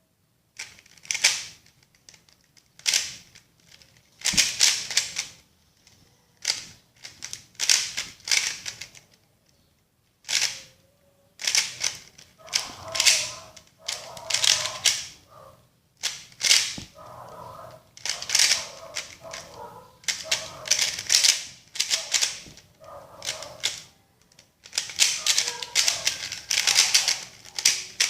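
GAN 356 Air S speedcube being turned by hand: bursts of rapid plastic clicking as its layers are twisted, each burst lasting about a second, with short pauses between them.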